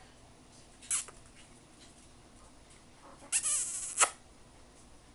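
Pomeranian puppy giving high-pitched yips: a short one about a second in and a longer, louder one about three seconds later.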